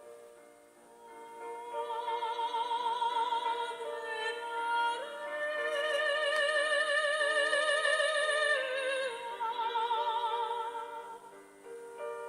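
Background music in an operatic style: a high voice holds long notes with wide vibrato over a soft, steady accompaniment, swelling through the middle and easing off near the end.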